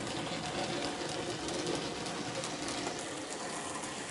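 A small-scale model train, a diesel locomotive hauling coaches, running steadily along the track at about 60 scale miles an hour: an even rattle of wheels on rail with a faint motor hum.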